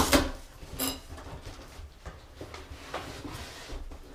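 Handling noise from an airsoft rifle and its box during unboxing: a loud clatter right at the start, a short sharp scrape with a ringing edge just under a second in, then quieter rustling and small knocks.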